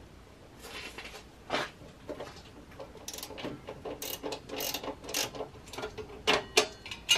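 Hand ratchet with a 10 mm socket undoing bolts, its pawl clicking in short, irregular runs with a few louder knocks of the tool.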